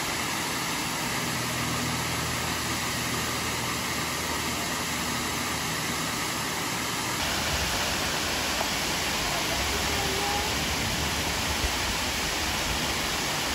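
Steady rush of a waterfall, Gooseberry Falls, its water pouring over stepped rock ledges into a pool below. There is a slight change in the sound about halfway through.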